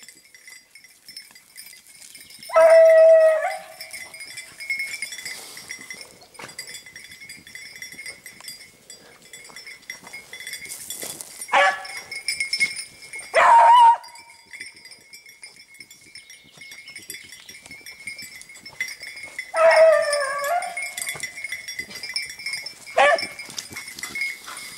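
Beagle baying, five separate drawn-out bays spaced several seconds apart, the longest two lasting about a second each; a hound giving voice on a hare's trail.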